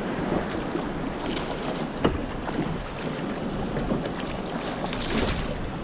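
Water splashing and washing against the side of a boat as a hooked fish churns at the surface alongside, with wind on the microphone and a few sharp splashes or knocks.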